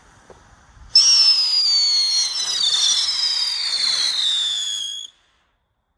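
Weco Twister whistling firework going off: a loud, shrill whistle over a rushing hiss starts suddenly about a second in and glides slowly down in pitch, then cuts off abruptly about four seconds later.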